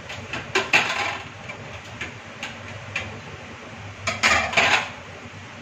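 Stainless steel plates and lids clattering as they are handled and set down on a kitchen counter, in two bursts: one about half a second in and another about four seconds in, with a few light clinks in between.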